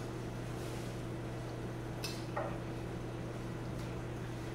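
Steady low hum of room background, with one faint light clink of a spoon about two seconds in.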